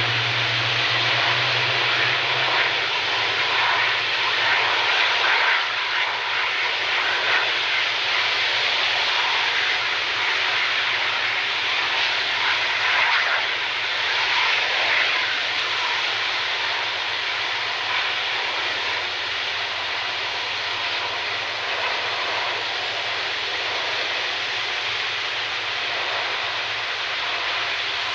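Airbus A330's jet engines running steadily at high power during a ground engine test, a continuous dense rush of noise that eases slightly in the second half.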